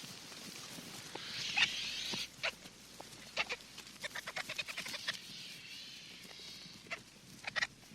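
Birds singing in a natural ambience: two warbling song phrases, the first about a second in, with a quick run of short chirps, about five a second, between them and a few single sharp notes near the end.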